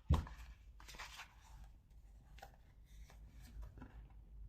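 Tarot cards being handled: one soft knock right at the start, then faint rustling and small taps as cards are drawn and laid out.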